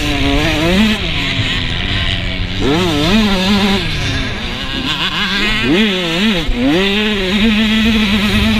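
Motocross bike engine heard from the rider's helmet camera, its pitch sweeping up and dropping back several times as the rider works the throttle and shifts, then holding a steady pitch near the end.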